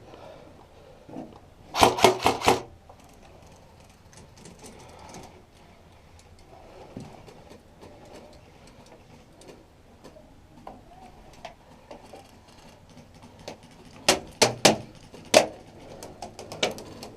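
Airsoft gun shots: a quick burst of about six sharp shots about two seconds in, then several single shots spaced out near the end.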